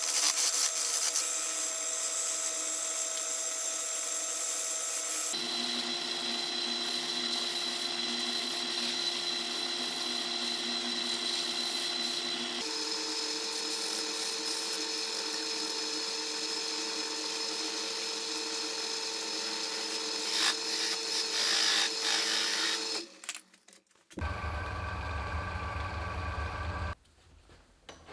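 Power tools running on a maple blank: a steady motor tone over a cutting hiss that changes pitch abruptly twice, about 5 and 13 seconds in, and stops near 23 seconds. A lower hum follows for about three seconds.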